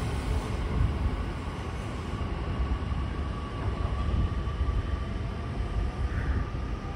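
Nishitetsu 6000 series electric commuter train pulling away down the track: a low rumble of wheels and running gear, easing a little as it recedes. About two seconds in, a steady thin whine joins it.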